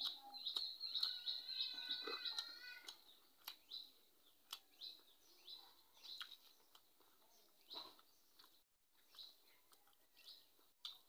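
Small bird chirping repeatedly in short high notes that fall in pitch, about one every half second, busiest and loudest in the first three seconds, with soft clicks of eating with fingers from a plate.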